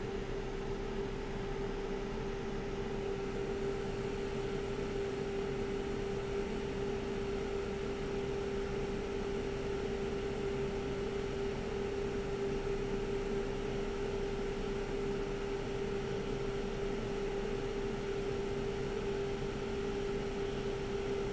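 Hot-air rework station blowing steadily over a logic board, a constant rush of air with a steady hum, while it heats an LP8550 backlight driver chip to desolder it.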